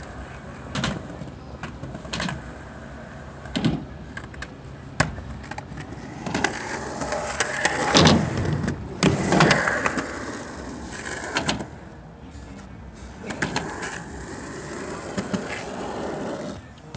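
Skateboard wheels rolling over concrete, with sharp clacks of the board at intervals. The rolling gets loud in the middle as the board passes close, then fades to a quieter roll.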